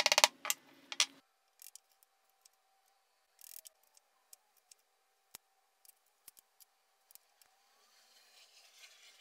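Bench chisel paring end-grain waste from hand-cut dovetails by hand pressure, its edge guided against a clear acrylic jig: a fast crisp chattering scrape in the first second. After that come faint, scattered slicing ticks and one short scrape about three and a half seconds in.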